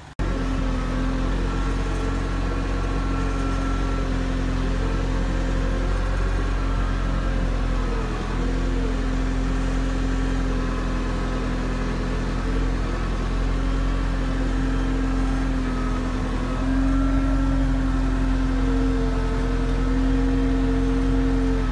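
A construction machine's engine running steadily with slight changes in pitch. It dips briefly about eight seconds in and gets a little louder at about seventeen seconds.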